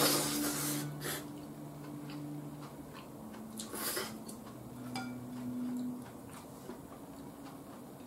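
Udon noodles being slurped: a loud slurp right at the start, a short one about a second in and another about four seconds in, with faint chewing and mouth clicks between.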